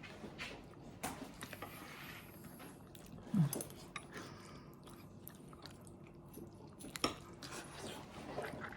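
A person chewing a mouthful of chicken curry, quiet mouth sounds with a few light clicks, and a brief low falling sound about three and a half seconds in.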